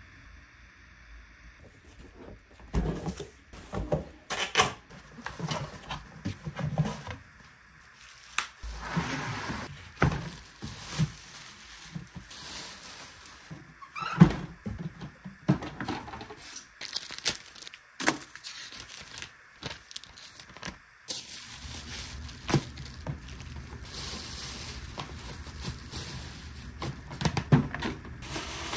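Hard plastic knocking, clicking and rattling as a Playtex Diaper Genie Complete diaper pail is handled and its parts are pulled apart and fitted together, in irregular bursts starting about two seconds in.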